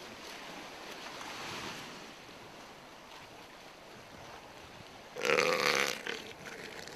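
Young northern elephant seal giving one loud, throaty belching call about five seconds in, lasting about a second, over steady surf and wind noise.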